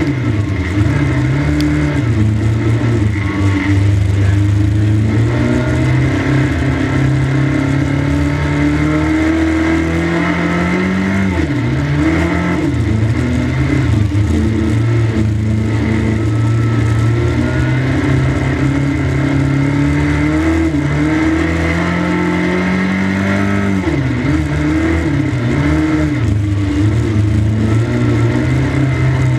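A 1300cc stock car's engine heard from inside the car during a race, revving hard and loud, its pitch falling as the driver lifts off for each corner and climbing again on the straights, several times over.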